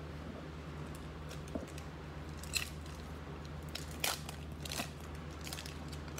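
Trading card pack being opened and handled: several short crisp crackles and rustles of the foil wrapper and cards, sharpest about two and a half and four seconds in, over a steady low hum.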